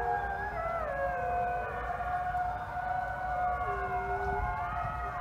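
A chorus of many wolves howling together: long overlapping notes, several rising and falling in pitch, over one steady held note.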